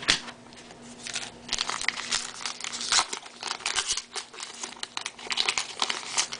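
Crinkling and tearing of a trading card pack wrapper being handled and opened by hand, an irregular run of crackles.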